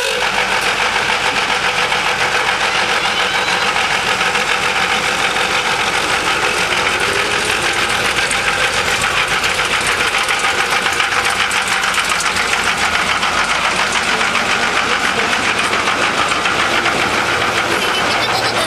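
Narrow-gauge park-railway train with an Adler-replica locomotive passing close by, running with a fast, steady rhythmic knocking, then its open passenger cars rolling past on the track.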